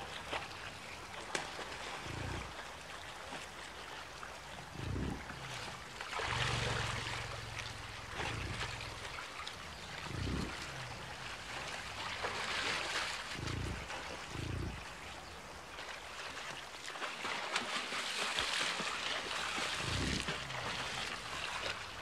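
American bison wading through a shallow, rocky river: steady rushing water with splashing that swells several times, and short low grunts from the herd every few seconds.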